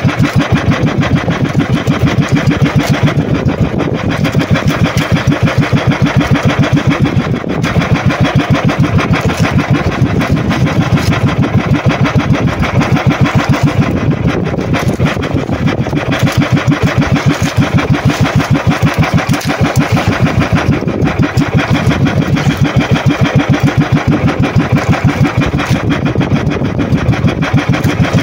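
Outrigger boat's engine running steadily close by, a loud even throb at about five beats a second.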